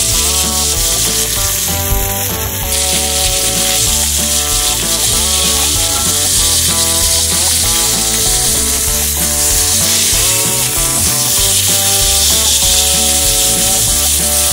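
Ground beef frying in a cast-iron skillet on a camp gas stove, a steady loud sizzle, with background music playing over it.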